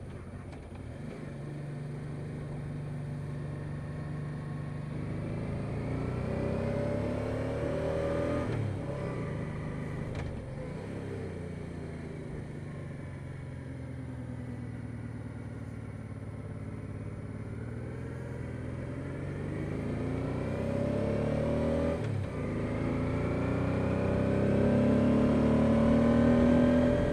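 Honda Deauville NT650V's V-twin engine pulling hard under acceleration. Its pitch climbs and drops back at gear changes about eight and a half and twenty-two seconds in, and it is loudest as it revs up again near the end.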